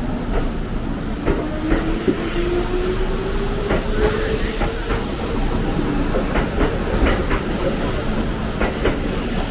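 Electric train running through a station. Its motor whine rises in pitch over the first half, over a steady rumble of wheels on rail with scattered clacks.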